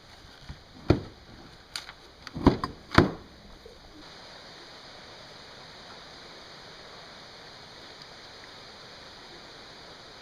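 Several sharp knocks and clicks of hard parts being handled, about five in the first three seconds, the loudest three close together, followed by a steady background hiss.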